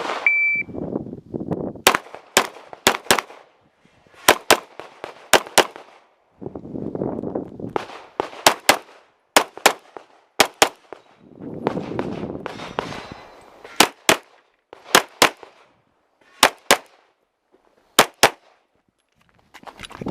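Shot-timer start beep, then a Glock 34 9mm pistol firing about two dozen shots, mostly in quick pairs, during a USPSA stage. There are noisy stretches between the strings of shots.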